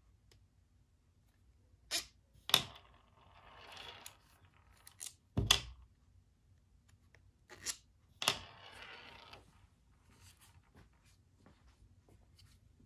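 Small-parts hand work with a hex driver: a handful of sharp clicks and taps of metal screws and the driver against hard plastic parts and the bench, twice followed by about a second of scratchy rasping.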